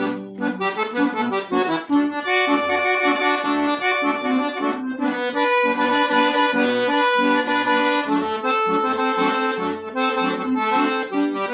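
Accordion (gaita) playing an instrumental passage: a melody over held chords, with bass notes pulsing in a steady rhythm.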